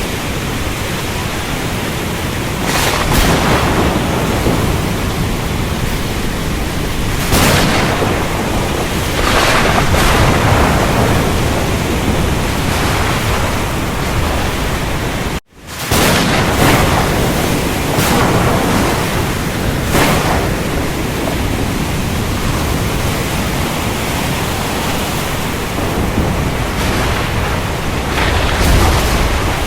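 Steady rain hiss with thunder rumbling in repeatedly, about seven swells that rise and fade over a few seconds each. About halfway through, the sound cuts out suddenly for a split second.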